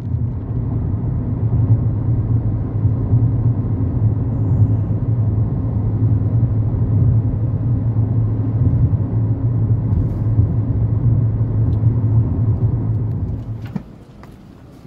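Car driving at a steady speed: engine and road noise as a steady low rumble, which cuts off abruptly about a second before the end.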